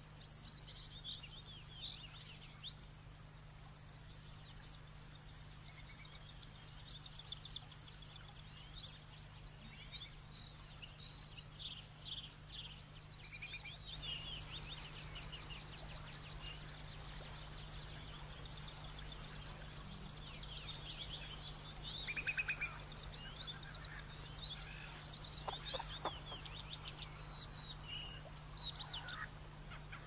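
Many small birds singing at once in a dense chorus of quick, high chirps and trills, with a few lower calls near the end. A faint steady low hum runs underneath.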